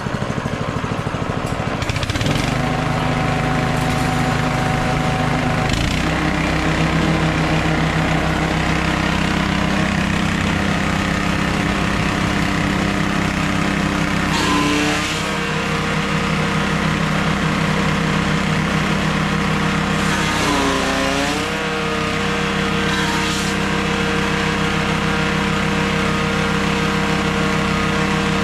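Grass chopper driven by a small engine, revving up about two seconds in and again around six seconds, then running steadily at speed. Twice the engine briefly drops in pitch and recovers as bundles of grass stalks are fed in and chopped, with short bursts of cutting noise.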